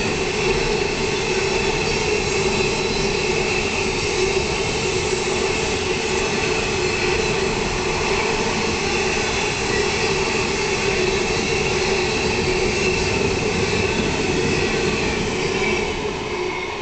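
Empty coal hopper wagons rolling past at speed: a steady rumble of wheels on rail with a steady high ringing tone over it, dropping away near the end as the last wagon passes.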